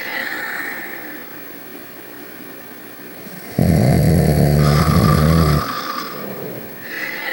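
Snoring in slow breathing cycles: one loud, low snore lasting about two seconds midway, with softer, higher whistling breaths near the start and near the end.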